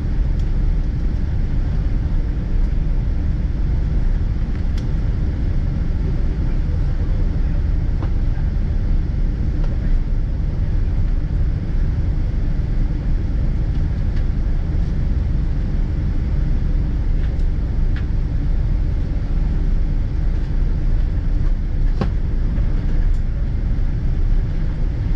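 Steady low rumble of cabin noise inside a Boeing 777-200ER on the ground, with a few faint clicks spread through it.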